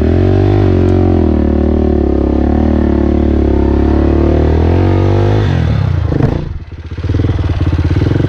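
Dirt bike engine pulling steadily under load up a rutted trail, then about six seconds in the revs drop away briefly before it picks back up, chugging at low revs.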